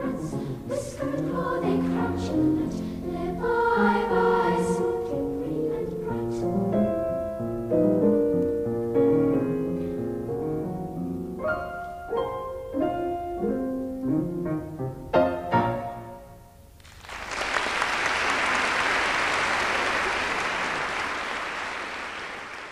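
A youth choir of children's and teenagers' voices sings the closing phrases of a song, ending about sixteen seconds in. Applause breaks out right after and fades away near the end.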